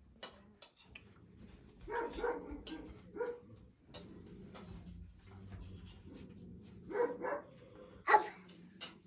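A dog barking in short bursts, several times, with the sharpest bark a little after 8 seconds in.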